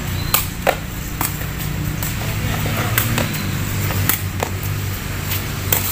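Sepak takraw rally: the takraw ball kicked back and forth, about a dozen sharp, irregularly spaced knocks, over a low steady hum of road traffic.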